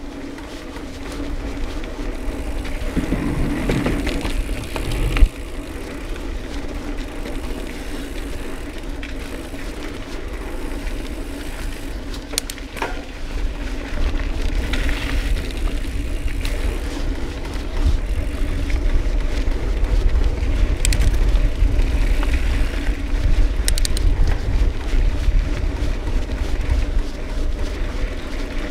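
Mountain bike rolling along a dry dirt trail: a steady rumble of tyres and wind on the mic, with a few brief clicks and rattles from the bike. A sharp knock about five seconds in is the loudest moment.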